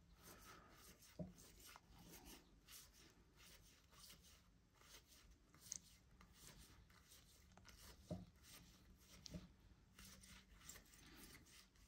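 Near silence, with a few faint soft ticks and rustles of baseball cards being slid one by one from one stack to the other.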